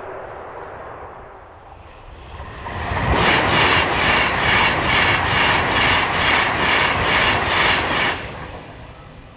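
A train passing close by on the line: a loud rush of wheels on rail with a regular beat of about two a second. It builds from about three seconds in and drops away sharply at about eight seconds.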